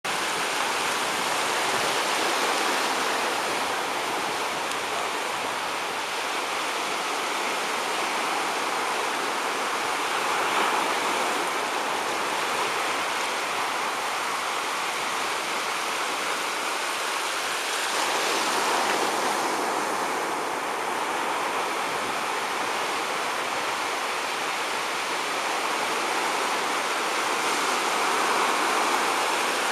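Ocean surf: small waves breaking and washing at the shoreline, a steady rushing noise that swells slightly several times.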